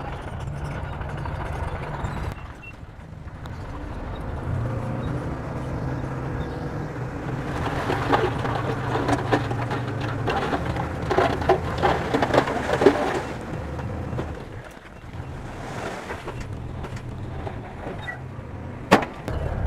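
Bulldozer diesel engine running under load, with a stretch of clattering in the middle and a sharp knock near the end.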